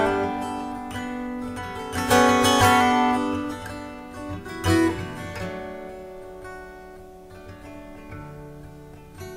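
Music played on acoustic guitar: chords strummed and left to ring. There are strong strums about two seconds in and again near five seconds, and the sound dies away toward the end.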